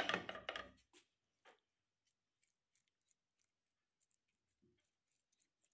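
Silicone spatula spreading a moist vegetable filling over raw dough: a louder scraping rustle in the first second, then faint scattered ticks and soft wet squishes.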